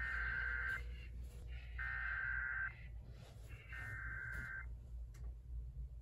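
Emergency Alert System SAME header on FM radio: three identical bursts of buzzy digital data tones, each just under a second long with about a second between them.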